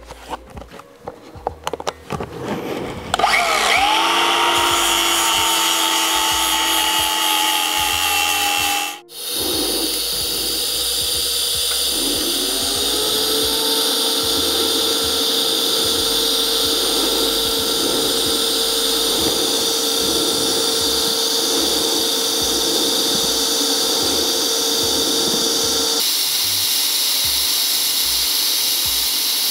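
Handheld power tool grinding mill scale off the steel so it is bare metal, ready for welding. It spins up about three seconds in and runs for several seconds, stops briefly, then spins up again and runs steadily until a few seconds before the end.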